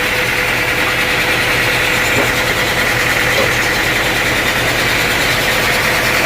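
Sawmill machinery engine running steadily, with a constant hum and no change in pace.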